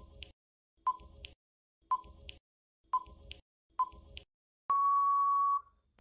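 Electronic countdown-timer beeps: five short beeps about a second apart, each with a faint click after it, then one long beep of about a second marking time up.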